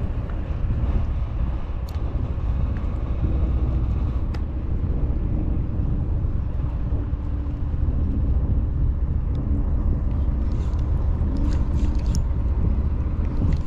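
Wind buffeting the microphone, a steady low rumble, with a couple of faint clicks.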